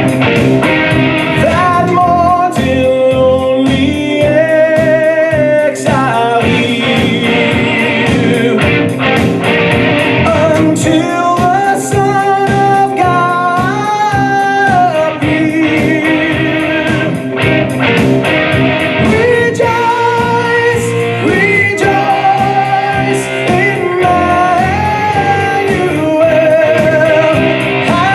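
Music with singing: a Christmas song, a sung melody over instrumental backing, playing steadily throughout.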